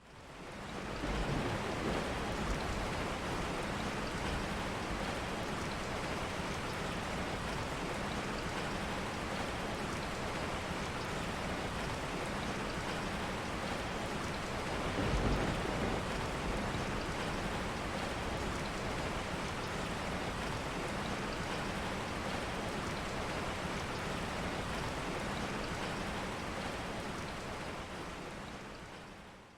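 Heavy rain pouring steadily, with low rolling thunder swelling twice, once in the first few seconds and again about halfway through. It fades in at the start and fades out near the end.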